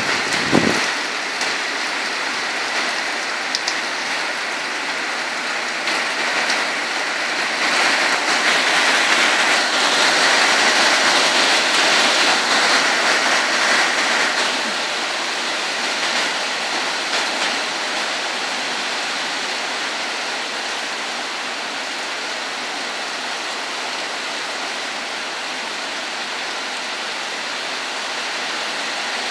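Steady heavy rain, swelling louder for several seconds partway through. A brief thump comes about half a second in.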